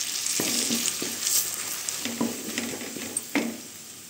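Ground spices (red chilli, turmeric, coriander powder) sizzling in hot butter and ghee in a kadai while a wooden spatula stirs them in several short scraping strokes. The spices are being lightly roasted, and the sizzle dies down toward the end.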